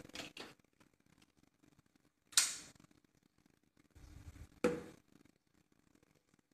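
Handling of a small plastic bottle as it is readied for pouring: two short sharp clicks, one about two seconds in and one near five seconds, the second just after a brief low rumble.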